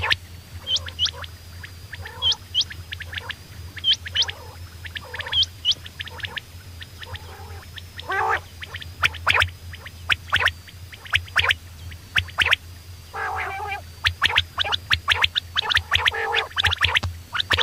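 Quail calling: short, sharp, upswept notes in pairs about every second and a half, then quicker runs of clicking notes and a couple of harsher rattling calls, over a steady low hum.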